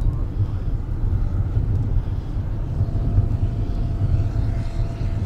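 Dewoitine D.26 RC scale model airplane's engine and propeller running in flight, heard as a steady low drone. A faint steady higher tone joins about three seconds in.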